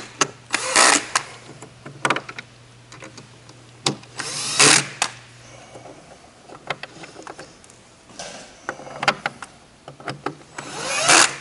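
Cordless drill/driver running screws into an aluminium conveyor's connector plate in several short bursts, with clicks and knocks of the bit and screws being handled in between.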